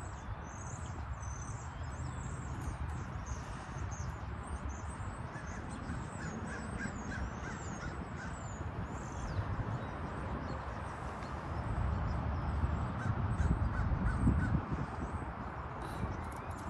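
Birds calling outdoors: crows cawing, with many short high chirps from smaller birds. A low rumble swells about twelve seconds in and fades again near the end.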